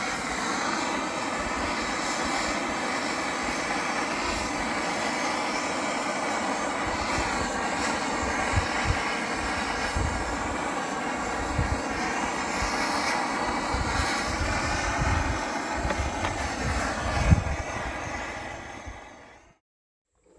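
Propane torch burning steadily as it shrinks heat-shrink tubing over spliced well-pump wires, with low gusty rumbles underneath; the sound fades out shortly before the end.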